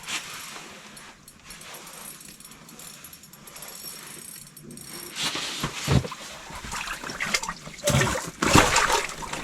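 Water splashing and sloshing in an ice-fishing hole as a hooked walleye is brought up to the surface. The splashing starts about halfway through and grows louder toward the end, with a couple of knocks.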